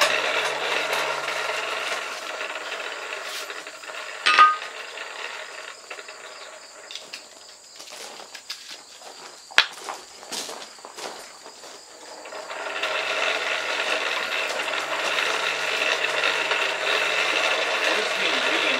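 Coal forge blower running with a steady drone that dies away over the first few seconds and spins back up about twelve seconds in. In the lull between, a sharp ringing clink about four seconds in, a click near ten seconds, and small scattered clicks.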